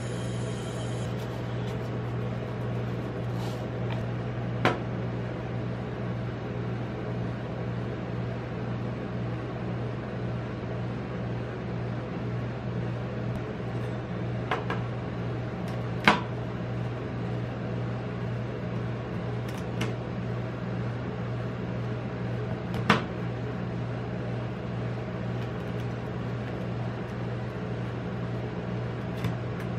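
Steady hum of a rolled-ice-cream cold plate's refrigeration unit. Now and then the steel spatulas give a sharp tap against the metal plate as the ice-cream bar is chopped, three of them louder than the rest.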